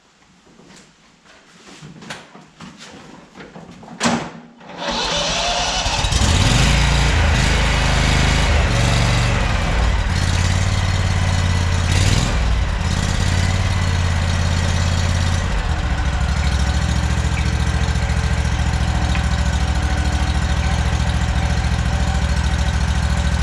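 Simplicity riding lawn mower engine being started: a few footsteps and a clunk, then the engine catches about five seconds in and runs. It runs higher at first, then drops to a lower, steady idle about fifteen seconds in.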